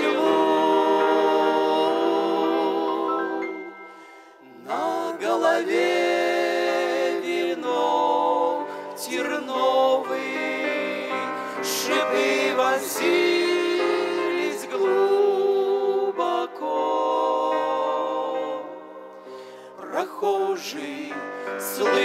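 Three voices, a woman and two men, singing a slow Russian gospel hymn in harmony with long held notes. The singing dies away briefly about four seconds in and again near the end.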